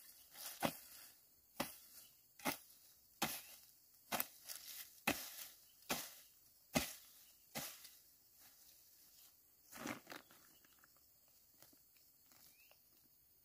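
A hoe blade striking into soil around a young plant, about one stroke a second, stopping about eight seconds in. One softer, longer scrape follows near ten seconds.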